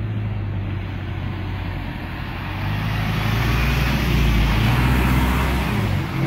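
A heavy motor vehicle's engine running with a steady low hum, joined by a rushing noise that grows louder over the second half.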